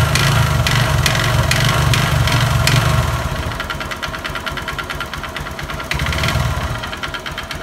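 Honda Verza's air-cooled single-cylinder engine running with a rough, rattling knock. It runs louder at first, settles lower about three seconds in and picks up briefly near six seconds. The mechanic puts the knock down to a scratched, worn piston, and notes it follows the throttle.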